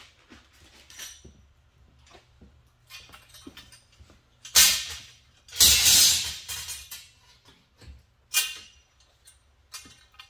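Workshop handling noises from sidecar fitting work: scattered clinks and scrapes of parts and tools, with three louder noisy bursts near the middle, the longest lasting about a second, over a faint steady hum.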